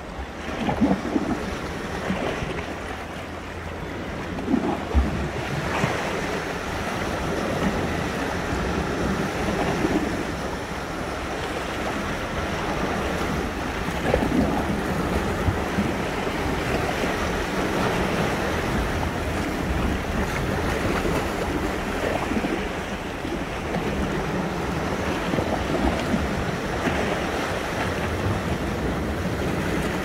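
Sea waves breaking and washing ashore in a steady, rushing wash that swells and eases. Wind gusts hit the microphone now and then as low thumps.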